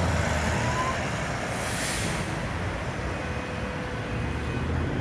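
Downtown street traffic: a vehicle engine running low and steady, with a short burst of hiss about a second and a half in.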